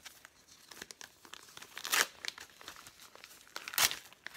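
Plastic toy packaging being crinkled and torn open by hand, with two louder rips, about two seconds in and near the end.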